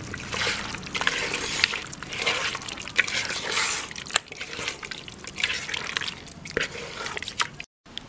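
Wet squelching of a hand mixing chicken pieces into thick ground masala paste in a pressure cooker, in irregular squishy strokes with a few sharp clicks. The sound cuts out abruptly near the end.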